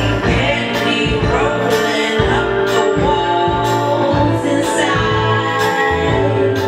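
Tango music played for dancers, with a singing voice over the instruments and a steady beat about once a second.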